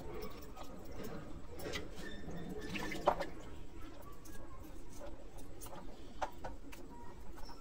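Hands rubbing and scraping raw hilsa fish in a basin of water to loosen the scales: wet squelching, small splashes and drips, with scattered light clicks, one sharper about three seconds in.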